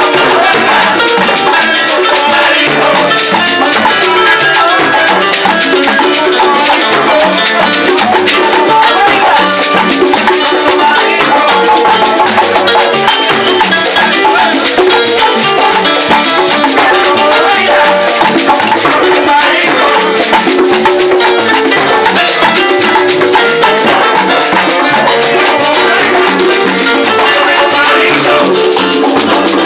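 Live salsa band playing loud and without a break: congas and timbales drive a steady groove amid dense, full-band music.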